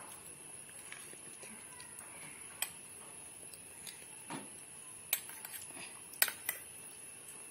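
Metal spoons clinking and tapping against stainless steel bowls: several sharp, irregular clinks, the loudest a little after six seconds in, over a faint steady hiss.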